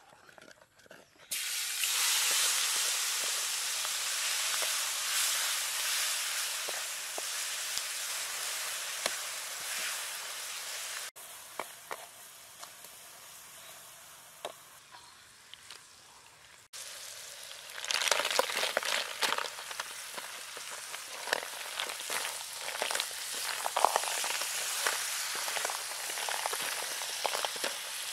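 Hot oil sizzling in a metal wok as chilies go in, starting suddenly about a second in, then a quieter stretch in the middle. Snails in their shells then fry in the wok with chilies and are stirred, the sizzle broken by many short clicks and scrapes of shells and spatula.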